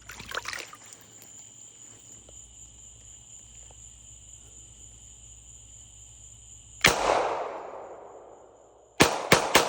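9mm Glock 17 clone pistol firing: one shot about seven seconds in with a long echoing tail, then three quick shots near the end.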